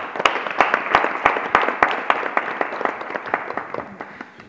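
Audience applauding, starting abruptly and dying away over about four seconds, with individual sharp claps standing out in the crowd.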